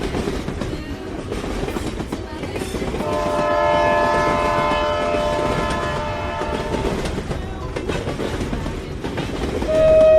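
Train running along the track with a steady rumble and clatter of wheels. A multi-tone train horn sounds for about four seconds in the middle, and another single-note horn starts near the end.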